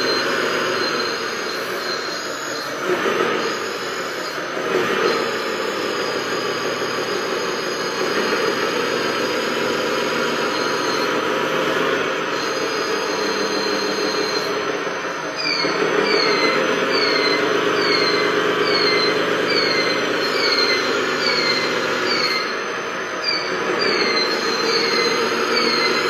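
Radio-controlled wheel loader and RC monster truck running, their motors and gearing whining steadily and rising and easing as the loader pushes and lifts the truck. From about halfway a short falling squeak repeats about twice a second.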